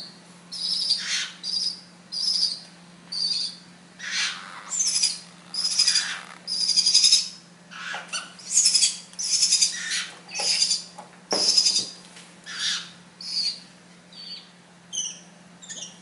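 Bali starling nestlings giving short, high begging calls for food, about one or two a second, growing weaker near the end as the chicks fill up.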